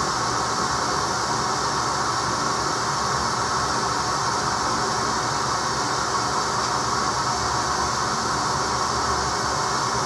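Vacuum cleaner running steadily, a constant loud rushing noise that neither rises nor falls.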